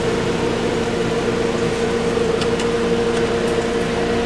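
Steady mechanical hum at a constant pitch from equipment running in a food truck kitchen, with a few light ticks near the middle from the sandwich being handled.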